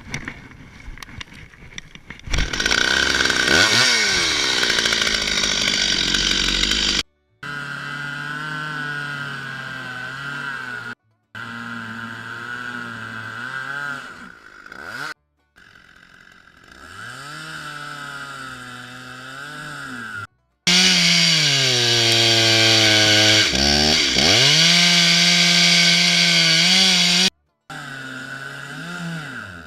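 Two-stroke Stihl chainsaw cutting into a spruce trunk, revving up and down between cuts, in several short stretches that stop abruptly. The loudest parts are two long spells at full throttle under load in the wood.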